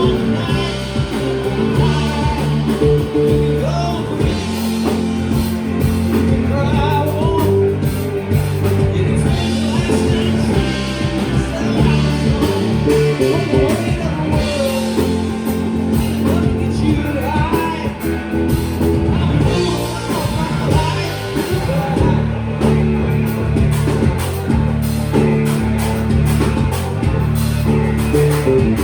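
Live rock band playing a song with a singer, electric guitar and drum kit.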